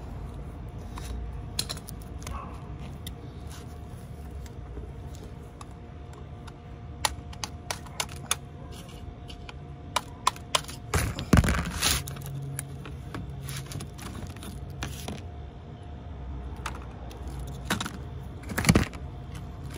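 Hand tools clinking and tapping on a car's disc brake caliper as its pad pins and clips are worked out: scattered metallic clicks, bunched about seven to nine seconds in, with the loudest knocks about eleven and twelve seconds in and again near the end, over a low steady rumble.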